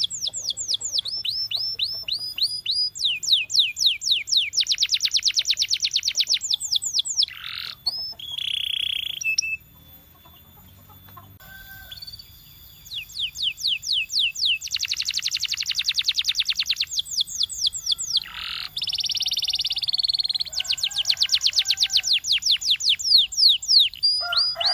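Canary singing: trills of quick, high, falling notes in phrases, some rolled slowly and some very fast, with a short break about ten seconds in.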